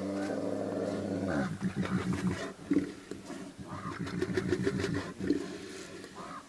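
Brown bear growling in several low bouts, the growls coming as fast pulses that fall in pitch.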